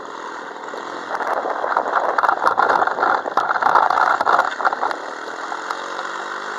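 Peugeot 103 MVL moped's 50 cc two-stroke single running louder with a busy rattle, then settling to a steady idle about five seconds in as the moped slows to stop.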